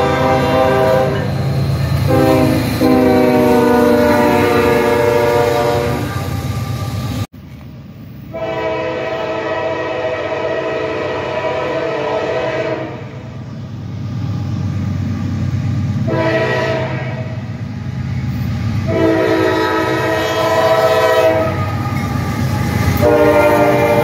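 Diesel locomotive air horns sounding a series of long chord blasts over the low rumble of locomotive engines and rolling rail cars. The sound cuts off abruptly about seven seconds in, and the blasts start again about a second later.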